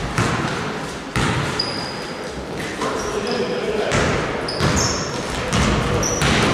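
Basketballs bouncing on a gym floor, with a sharp thud roughly every second, and short high squeaks of sneakers on the court among them. Voices carry in the echoing hall.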